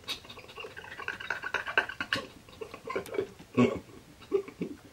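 A man laughing quietly and stifled in short, breathy fragments, with faint talk underneath.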